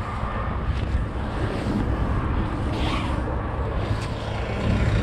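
Steady low engine drone with wind buffeting the microphone.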